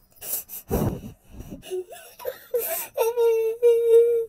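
A dog whimpering and whining: short snorts and sniffs first, then a wavering whine that settles into two long, steady wails near the end.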